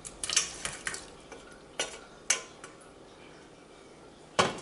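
A wooden spoon scraping and knocking against a stainless steel mixing bowl as cooked butternut squash cubes are pushed out into a soup pot: a series of light, irregular knocks and clatters, with a louder double clank near the end.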